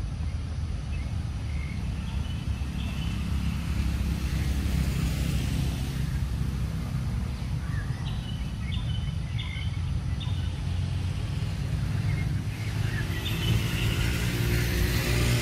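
Steady low outdoor rumble, with a few short, high chirps near the middle.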